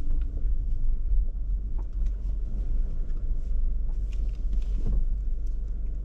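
Low, steady rumble of a car driving slowly on a dirt road, heard from inside the cabin, with faint scattered clicks.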